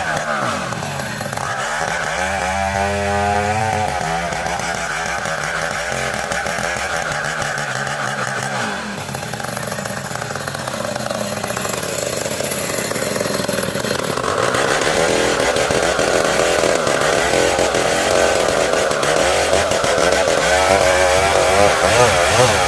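Old two-stroke chainsaw cutting dense ulin (Borneo ironwood) timber, running continuously with its engine pitch repeatedly dropping and rising as the chain loads up in the hard wood.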